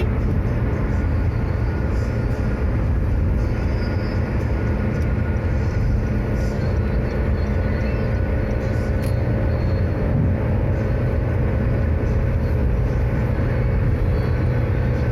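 Steady low rumble of tyre and engine noise inside a vehicle cruising on a toll road, even throughout with no change in speed.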